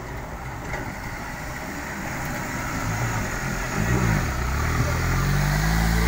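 Rushing river water, with a pickup truck's engine coming up louder and closer as the truck wades through the river. The engine's pitch rises and falls briefly about two-thirds of the way in, then holds steady and loud.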